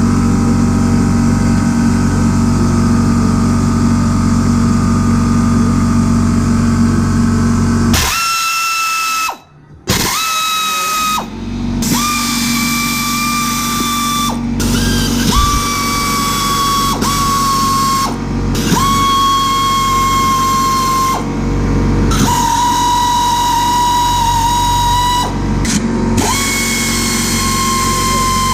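A steady low mechanical hum, then about eight seconds in an electric power tool starts running in about nine bursts of one to three seconds each. Each burst is a steady whine that dips slightly in pitch as it starts.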